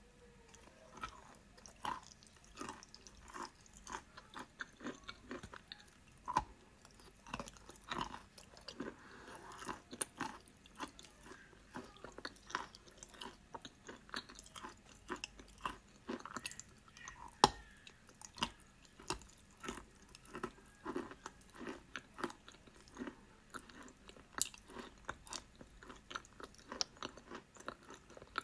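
Chalk being bitten and chewed close to the microphone: short crisp crunches about once or twice a second, with softer crackling in between.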